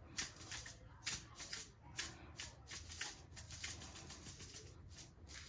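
Black pepper being dispensed from its container into a bowl of sauce: a run of short, scratchy, rattling strokes, about three a second.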